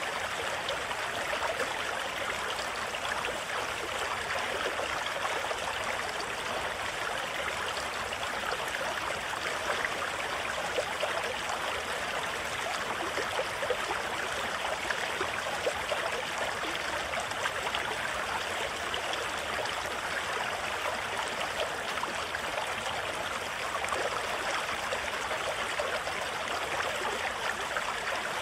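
The American River's shallow rapids rushing over boulders and rocks: a steady, even sound of fast white water.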